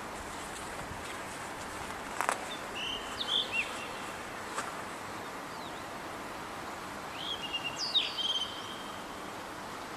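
Red-bellied blue rock thrush (Monticola solitarius philippensis) singing two short phrases of clear, fluty whistled notes, about two seconds in and again about seven seconds in, over a steady background hiss. A sharp click sounds at the start of the first phrase and again a couple of seconds later.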